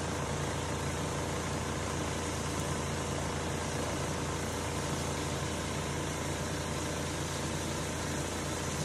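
Kitchen range hood fan running: a steady hum with an even rush of air that does not change, over a pan of sauce simmering on a gas burner.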